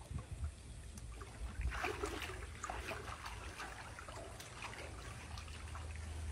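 Water sloshing and splashing in a galvanized stock tank as a jaguar wades through it and a person's hands move in the water, with irregular small splashes that get busier about a second and a half in.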